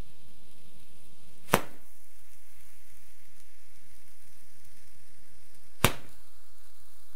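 Roman candle firework firing two shots about four seconds apart, each a sharp pop, over a steady high hiss.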